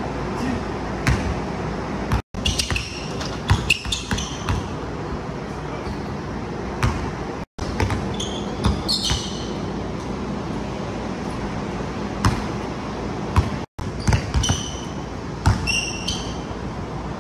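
Basketball bouncing on a hardwood gym floor during dribbling drills, with sneakers squeaking in short high chirps on the wood, over a steady background noise. The sound cuts out briefly three times.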